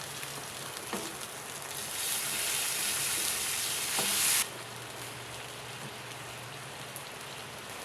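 Garlic sautéing in hot oil in a pan, a steady sizzle that grows louder from about two seconds in and drops off suddenly about four and a half seconds in.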